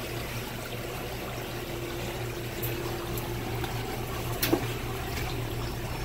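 Water pouring steadily out of an ice bin's drain line and splashing onto a flooded tile floor, as the bin's backed-up water drains after the pinched drain line is freed. A steady low hum runs underneath, and a single sharp click comes about four and a half seconds in.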